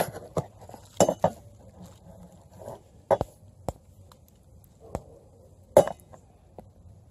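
Camp cookware and utensils being handled: a scattered series of sharp clinks, taps and knocks, the loudest a little before six seconds in.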